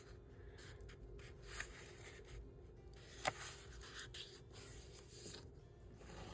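Paper being folded and creased by hand: faint rubbing and scraping of fingers and nail along the fold, with one sharp tick about three seconds in.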